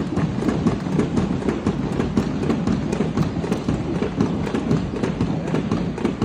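Several CPR training manikins being given chest compressions at once, out of step with each other: a busy, irregular clatter of dull knocks and clicks.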